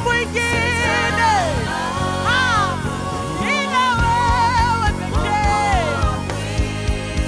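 Live gospel worship music: a band holding steady chords under a singer's gliding, melismatic vocal runs.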